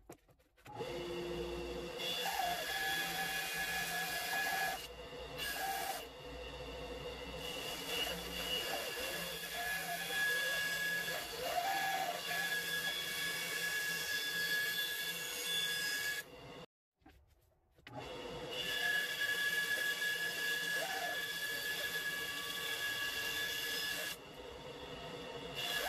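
Band saw running with a steady whine while its blade cuts through a block of pine, the rasp of the cut riding over the motor. The sound breaks off for about a second partway through.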